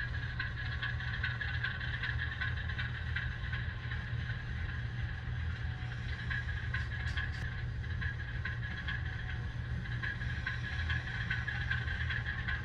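Atlas ALCO HO scale diesel locomotive's factory sound decoder playing a steady low diesel engine sound through its small speaker, with a light, fast rattle of model freight cars rolling slowly along the track.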